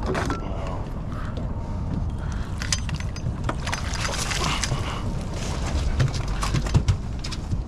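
A small halibut being scooped in a landing net: water splashes at the surface about three seconds in, then the net and flapping fish knock onto the boat's deck in a few short thumps near the end, over a steady low rumble.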